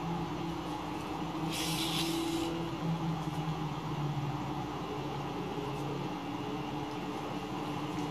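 Yarn drawn through crocheted fabric while sewing a seam with a yarn needle: a short hiss lasting about a second, starting about one and a half seconds in, over a steady low hum.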